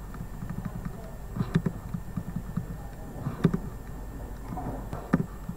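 Sharp single clicks from a computer mouse and keyboard, one every one and a half to two seconds, over a steady low hum, as list numbers are deleted one by one in a Word document.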